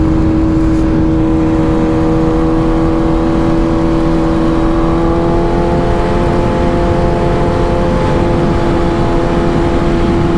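Sportbike engine running at steady cruising revs in fourth gear, a steady drone whose pitch edges up slightly about halfway through, over heavy wind rumble on the camera microphone.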